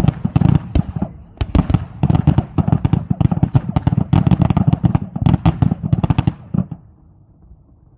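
Fireworks display: a rapid run of overlapping bangs and crackles that stops abruptly about six and a half seconds in.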